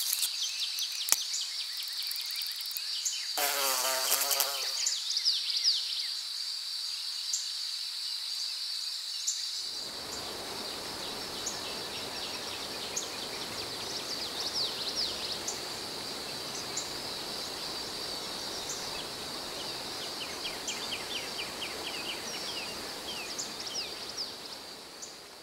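Summer insects droning in a steady high-pitched whine, with short falling chirps scattered through it. A brief buzz with a wavering pitch passes about three seconds in, and a steady low rushing noise joins about ten seconds in; everything fades down near the end.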